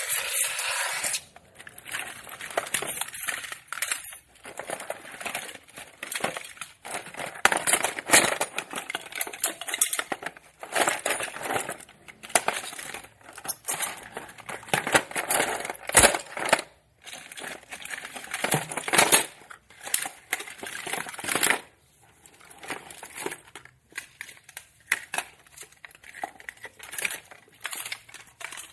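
Assorted small objects being picked up and handled: an irregular run of knocks, light clinks and rustling, coming in clusters with short pauses between.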